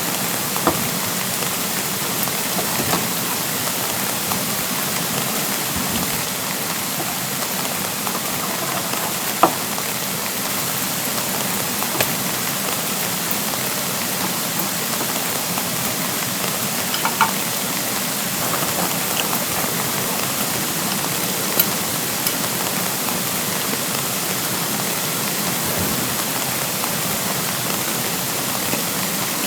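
Steady spring rain falling, with a few louder single drops tapping sharply on a surface.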